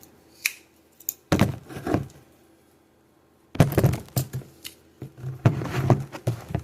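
Multi-tool army folding pocket knives being handled, with sharp metal clicks and scrapes as their tools are folded and opened. The clicks come in two bursts, a short one about a second in and a longer one from about three and a half seconds.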